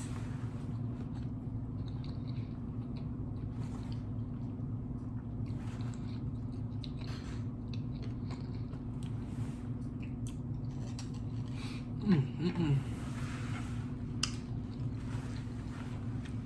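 Close-miked chewing of California roll sushi, with small wet smacks and clicks of the mouth over a steady low hum. About twelve seconds in, a short hummed vocal sound, the loudest moment.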